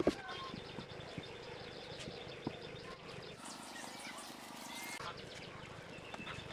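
Birds chirping, with a sharp knock at the very start and scattered light clicks and taps.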